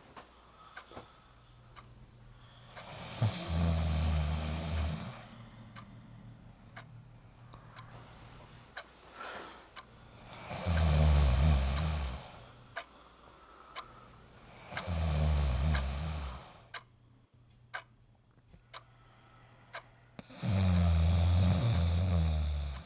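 A sleeping person snoring loudly four times, each snore about one and a half to two seconds long and a few seconds apart. A clock ticks faintly in the pauses between snores.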